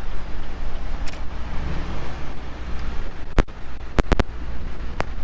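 Low, steady rumble of a car driving slowly, heard from the car, with about five sharp knocks or clicks in the last two seconds.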